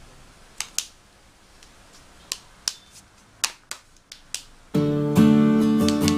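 A string of sharp, separate clicks, then about three-quarters of the way in instrumental background music starts suddenly and loudly, with steady sustained notes.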